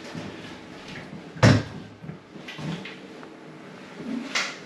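Glass shower screen panel and its metal frame knocking as it is worked loose and lifted out: one sharp clunk about a second and a half in, a few light clicks, and another knock near the end.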